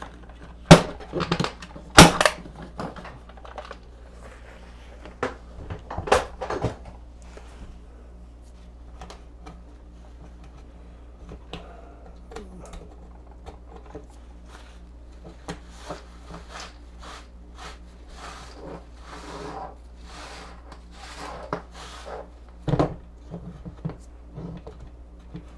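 Tools and parts handled on a workbench: a few sharp clicks and knocks, then a run of short rubbing or rustling strokes, over a faint steady hum.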